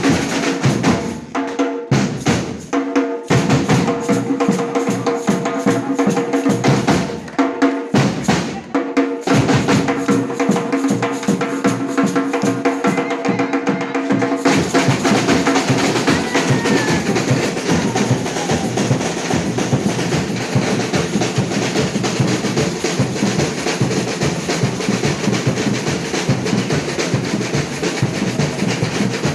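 Batucada, a Brazilian samba percussion ensemble, drumming a fast, dense rhythm. A few short breaks come in the first half, and the playing grows fuller from about halfway on.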